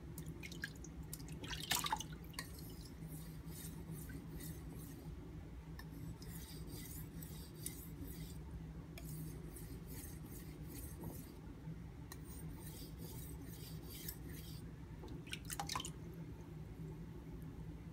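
Santoku knife blade being stroked back and forth across a wet Japanese water stone. The scraping passes come in runs of a few seconds with short pauses between, about three strokes a second, working the bevel to its apex.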